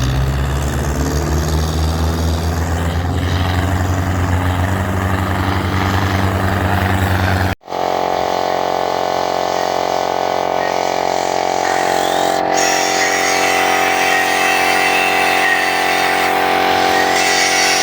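Combine harvester running steadily: a low engine rumble, then after an abrupt cut about seven and a half seconds in, a steadier machine hum with a strong steady whine and little rumble.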